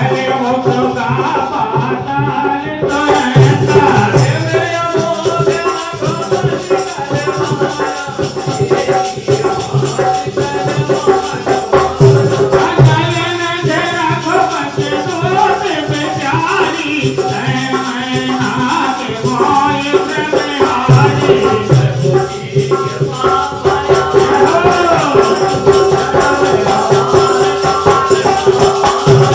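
Devotional music: a dholak beating a steady rhythm with jingling hand percussion over a held drone tone and a wavering melody line.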